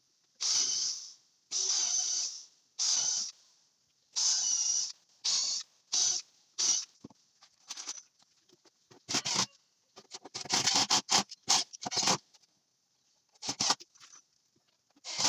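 Repeated scraping strokes on wood, each under a second long, in irregular runs, with a burst of quicker, shorter strokes about two-thirds of the way through.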